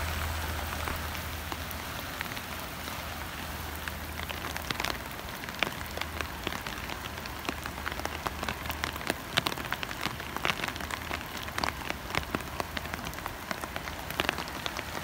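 Steady rain falling on a wet street, with many individual drops ticking sharply close by, more of them in the second half.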